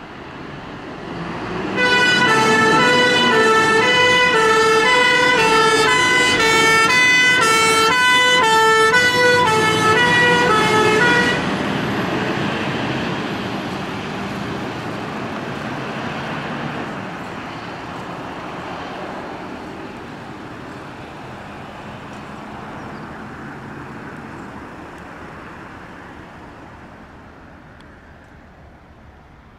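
Fire engine's two-tone siren alternating high and low for about nine seconds as the appliance leaves its station, then cutting off suddenly. Its engine and road noise fade as it drives away.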